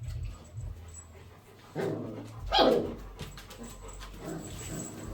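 A dog barks once, a single short bark that falls in pitch, about two and a half seconds in, with a softer dog sound just before it.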